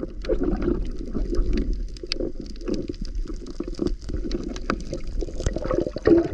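Underwater noise picked up by a submerged camera: a continuous muffled rumble of moving water from a swimming diver, dotted with many small clicks and crackles.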